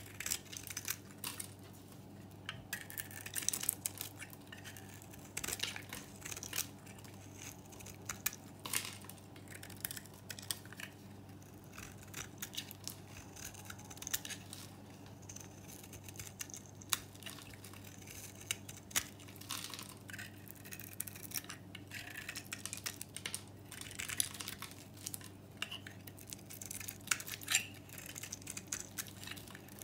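A knife shaving curls off a bar of dry, green-painted, varnished soap: repeated crisp, crackling scraping strokes, some in quick clusters, over a faint steady low hum.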